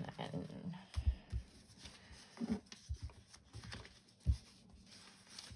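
Light desk handling of a paper planner and stationery: scattered soft knocks and taps with some paper rustling, as pen and stickers are handled.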